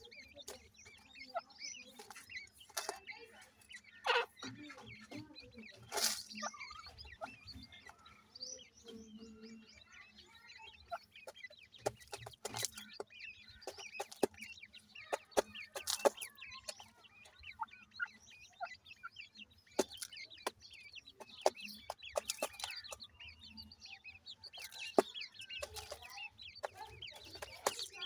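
Grey francolin hen clucking to her chicks, with the chicks' thin peeps. Short, sharp clicks and taps are scattered throughout.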